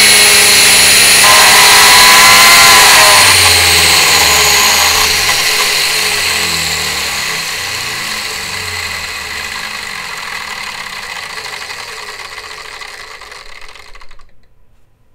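RC car's brushless motor and drivetrain on a flywheel chassis dyno, whining loudly at race speed. About three seconds in, the test run ends and the drivetrain coasts down: the whine falls in pitch and fades over about ten seconds, then stops.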